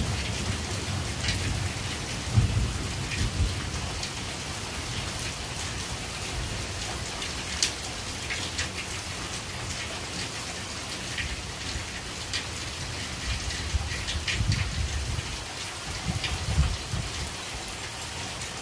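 Heavy rain falling in a steady hiss, with individual drops ticking close by. Low thunder rumbles swell about two seconds in and again in the last third.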